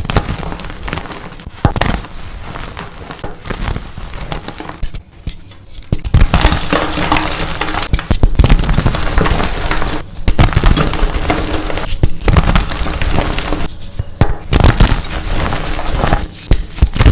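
Dyed blocks of gym chalk being crushed and crumbled, a dense run of crisp crunching and crackling. It breaks off briefly about five seconds in and comes back louder.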